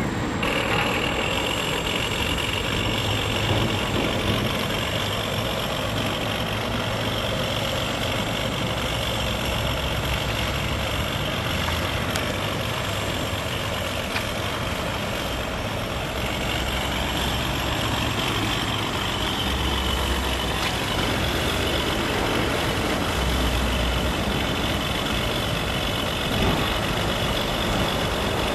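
Electronic engine-sound module playing a simulated engine at low throttle through a small Visaton FR7 loudspeaker, heard from about 20 m, with road traffic running in the background.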